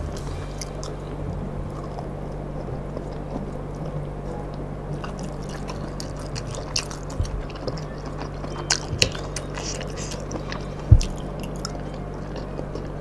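Close-up chewing of boiled leafy greens, with wet mouth sounds and small scattered clicks over a steady low hum. One louder, dull thump comes near the end.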